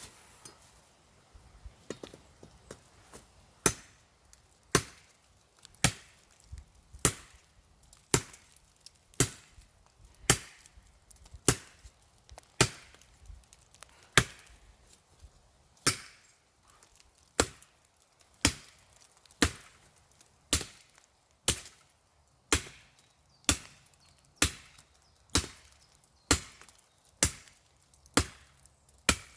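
Ontario Bushcraft machete chopping into a dead, dry conifer trunk, with sharp strikes about once a second. A few lighter taps come first, and the full chops begin a few seconds in.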